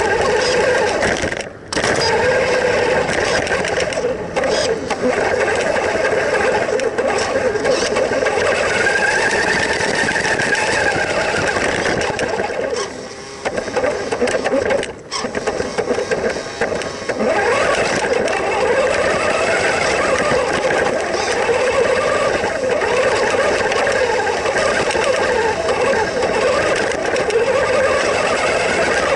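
Onboard sound of a WPL K-1 1:12 RC truck's small electric motor and gearbox whining as it drives over dirt and gravel. The pitch rises and falls with the throttle, and it drops out briefly a few times when the throttle is let off.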